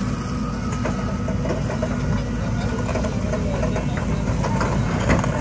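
Heavy diesel engine running steadily at idle, with a few faint knocks and one brief louder knock near the end.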